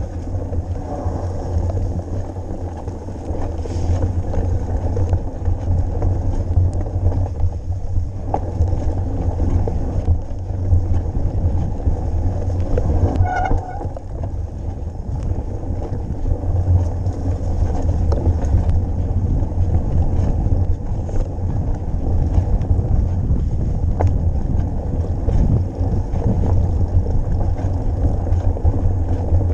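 Wind buffeting the microphone of a camera carried on a mountain bike while riding, a steady low rumble with rough trail and tyre noise mixed in. A short pitched squeak comes about halfway through.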